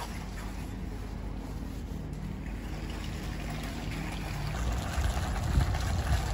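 A metal shopping trolley being pushed over car-park tarmac, its wheels rumbling, with wind rumble on the microphone; the rumble gets louder and more uneven about four and a half seconds in as the trolley gets moving.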